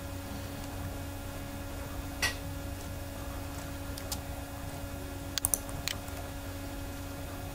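Scattered sharp clicks of a computer mouse and keyboard being worked, about five in all with a quick pair about two-thirds of the way through, over a steady low electrical hum.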